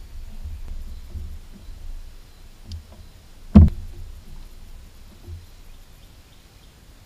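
Thumps and low rumble of handling inside a jon boat, with one sharp, loud knock about three and a half seconds in and a few faint clicks.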